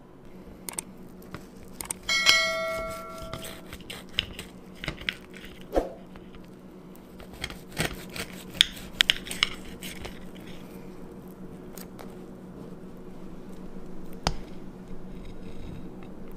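Metal knife and fork clicking and scraping against a glass plate while cutting through a glazed donut, with one ringing clink about two seconds in.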